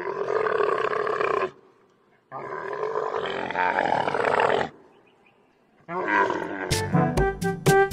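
Dromedary camel calling: two long calls, the second longer, then a shorter third call. Brass music comes in near the end.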